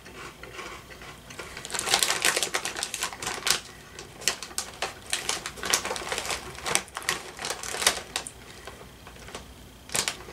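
Plastic snack bag crinkling and rustling as a hand rummages inside it: a rapid, uneven run of crackles starting about two seconds in and stopping shortly before the end.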